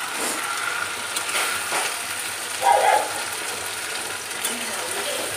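Chopped tomato and onion frying in a kadai with a steady sizzle, while a steel spatula scrapes and clatters against the pan as it stirs; one louder metal clank comes about two and a half seconds in.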